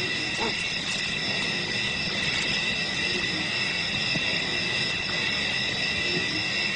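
Steady insect chorus of the night bush: an unbroken high-pitched trilling at several even pitches.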